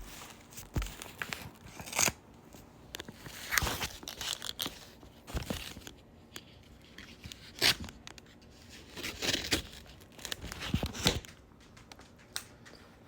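A paper envelope being torn open and the papers inside pulled out and unfolded: a string of short ripping and crinkling rustles with sharp paper snaps between them.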